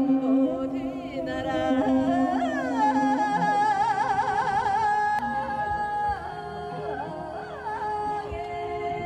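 A woman singing a Mongolian folk song into a microphone, long held notes broken by quick ornamental turns, over a low held note during the first three seconds.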